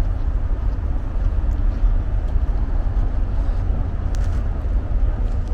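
Steady low rumble of wind buffeting the handheld camera's microphone.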